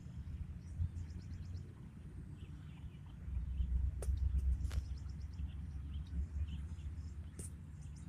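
Small birds chirping in short, rapid runs of high notes over a low outdoor rumble that grows louder about three seconds in, with a few sharp clicks.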